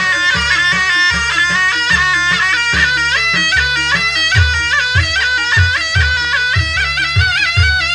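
Jaranan pegon music: a shrill slompret, the Javanese double-reed shawm, plays a fast, ornamented melody over steady drum beats. The beats grow heavier about halfway through.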